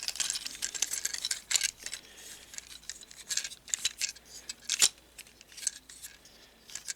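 Plastic parts of a Transformers Cyberverse Drift action figure clicking and rattling as they are handled and moved into robot mode, with one sharper click a little before five seconds in.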